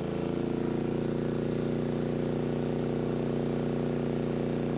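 MAXPEEDINGRODS MXR5500 inverter generator engine running at a raised, steady speed under a 4,000-watt load, settling just after revving up as the load was added. It measures just at 70 decibels.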